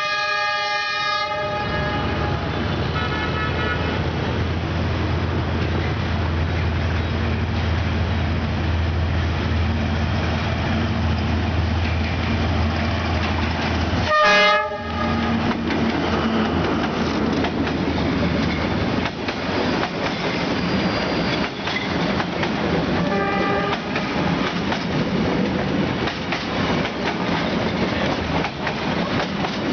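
A D19E diesel-electric locomotive sounds its horn four times as it approaches and passes, with the loudest blast about halfway through, over the heavy low drone of its engine. After it goes by, the passenger coaches roll past with a steady clickety-clack of wheels over the rail joints.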